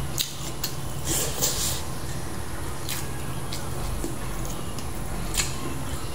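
Eating sounds at a table: a few sharp clicks of a spoon and fingers against plates and bowls, with small wet squishy noises of food being handled and chewed, over a steady low hum.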